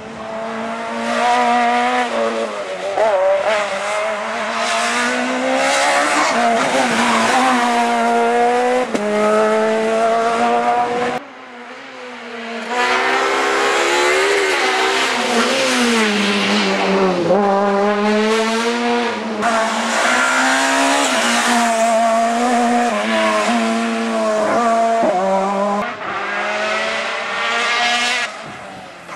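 Peugeot rally cars driven hard through a tarmac bend, one after another. The engines rev up and down, their pitch rising and falling in quick steps. The sound breaks off briefly about eleven seconds in and again near the end.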